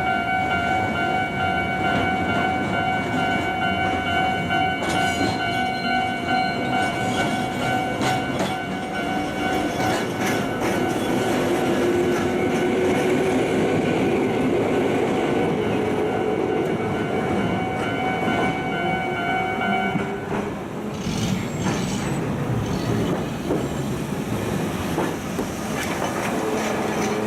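Level-crossing alarm bell ringing in a steady pulsing tone while a train rolls over the crossing with rail clatter and a rising motor whine. The bell stops about two-thirds of the way through, and the train noise carries on.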